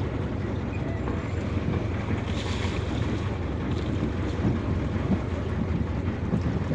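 Steady low rumble and wind buffeting the microphone aboard a small fishing boat at sea, with the wash of water around it.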